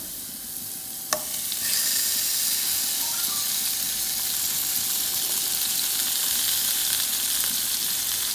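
Zucchini slices going into hot oil in a frying pan. A sharp knock about a second in, then the sizzling grows louder and stays steady.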